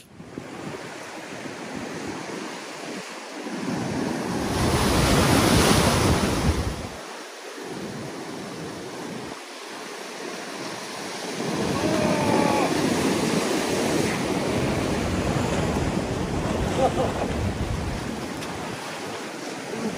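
Ocean surf breaking and washing over a rock ledge, with wind gusting on the microphone. The wash swells loudest about five seconds in, and a second long surge builds about halfway through.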